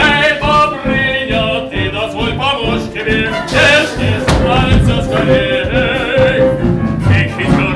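Music: a melodic passage with one long held note through the middle.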